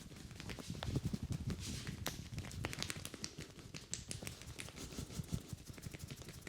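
Head massage: quick, irregular pats and taps on the head and skin, with soft thuds beneath them.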